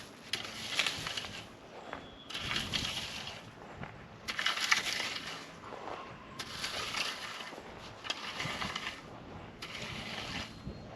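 A hand tool working loose ground in repeated strokes, each about a second long and coming roughly every two seconds.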